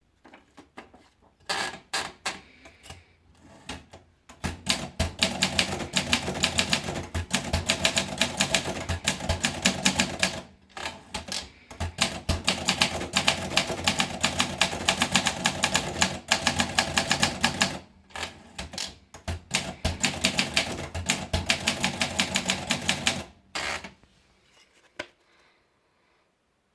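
Olympia Monica manual portable typewriter being typed on. A few separate keystrokes come first, then three long runs of rapid key strikes with short pauses between them, and a few last strikes near the end.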